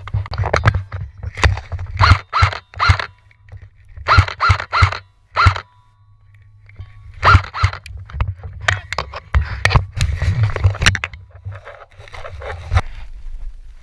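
Footsteps crunching and gear rustling close to the microphone, in quick groups of three to five steps with short pauses, over a low rumble of wind or handling noise.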